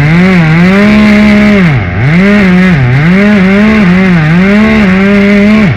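Chainsaw running at high revs as it cuts, its pitch sagging and recovering several times under load, then dropping off suddenly at the end.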